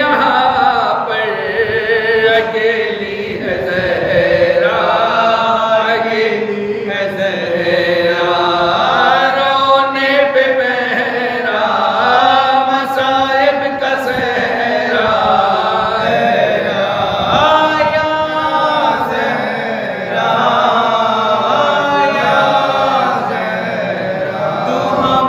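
A man's voice chanting an unaccompanied Shia mourning elegy into a microphone, in long, drawn-out melodic phrases.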